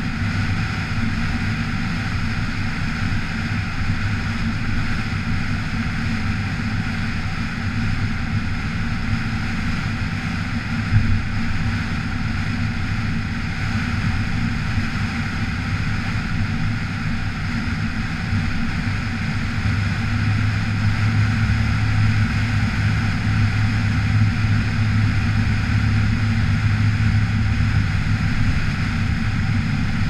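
Steady drone of a road vehicle driving along a wet road: engine and tyre noise with a low hum that grows louder about two-thirds of the way through. A brief knock about 11 seconds in.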